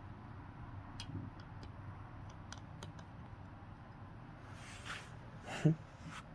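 Lego bricks being handled: scattered small plastic clicks and taps, then one louder knock near the end.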